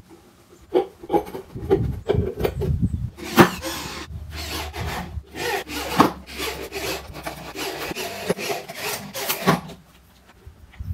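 A hand tool scraping and rasping in irregular strokes against the driver opening of a wooden loudspeaker cabinet. It starts about a second in and stops near the end.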